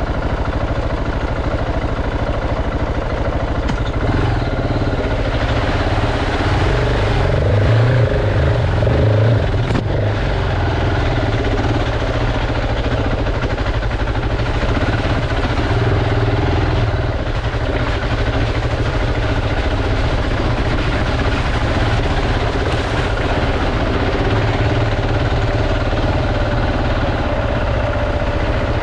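Enduro motorcycle engine running steadily under way on a muddy forest track, the revs rising and falling with the throttle and loudest in a brief surge a few seconds in.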